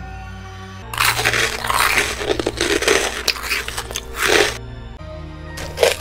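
Crunchy eating sounds of a mukbang, loud bites and chewing crunches starting about a second in and lasting about three and a half seconds, with a couple of sharp cracks near the end, over steady background music.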